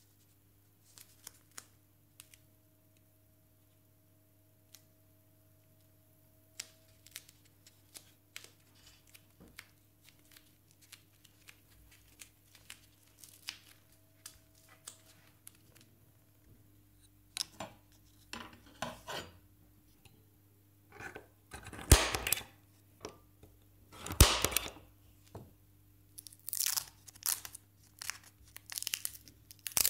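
Bench handling noises: faint clicks and rustles of material being handled, then several loud ripping sounds past the two-thirds mark and a run of shorter rips and crinkles near the end, as masking tape is pulled off the roll, torn and pressed down.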